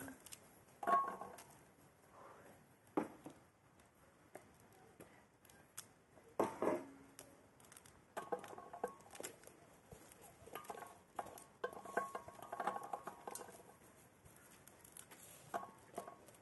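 Pomegranate being broken apart by hand, its seeds falling and pattering into an enamel basin, with irregular crackles of the tearing peel and the odd louder knock against the basin.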